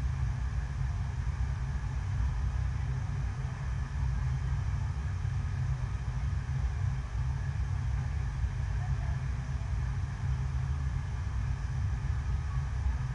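Steady low rumble of an indoor artificial wave ride: a continuous sheet of water driven by pumps up the ride surface.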